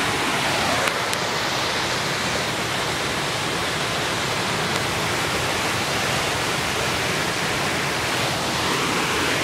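Waterfall rushing: a steady, even wash of falling water with no let-up, and a faint click about a second in.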